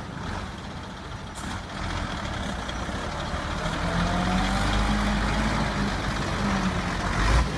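Iveco heavy water tanker truck's diesel engine running as it drives slowly up and passes close, growing louder as it nears, with a faint rising whine about halfway through. A short low bump near the end.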